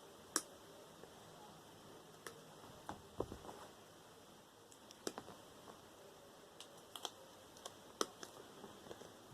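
Scattered light clicks and taps of small speaker parts being handled and set down on a hard surface, about a dozen irregular knocks.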